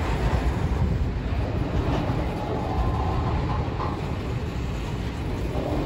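Double-stack container well cars of an intermodal freight train rolling past, a steady low rumble of steel wheels on the rails.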